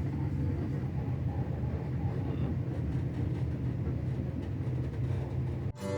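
Passenger train running: a steady low rumble of the carriage rolling on the rails. It cuts off suddenly near the end as acoustic guitar music begins.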